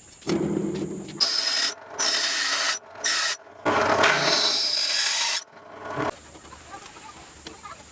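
Hand tool scraping against wood in about five separate strokes, the last one the longest.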